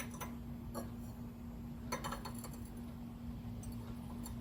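A few light metallic clinks as steel exhaust parts are handled and test-fitted together, over a steady low hum.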